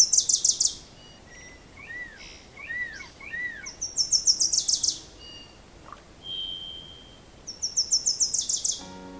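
Songbirds singing: a high, rapid trill of quick notes comes three times, about four seconds apart, with another bird's lower, arching whistled notes in between. Music begins near the end.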